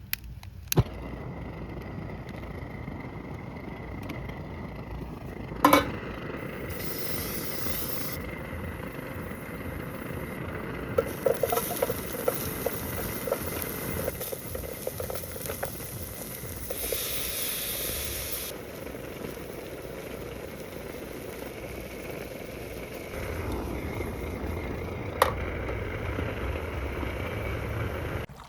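Food sizzling and hissing in a hot pan, with a few sharp clicks and a run of light ticks in the middle; the sound changes abruptly several times.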